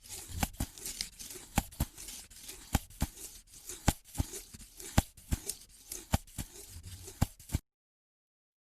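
A tearing, crackling sound effect: irregular sharp snaps over a rustling hiss, cutting off abruptly about seven and a half seconds in.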